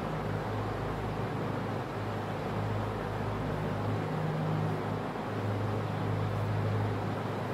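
Steady low hum over an even hiss: constant background room noise, with no distinct events.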